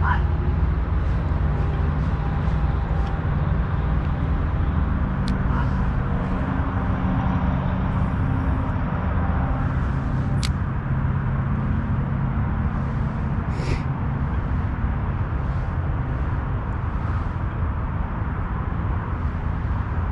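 Steady low rumble of motor vehicle traffic with engine hum that drifts in pitch, broken by a few short sharp clicks.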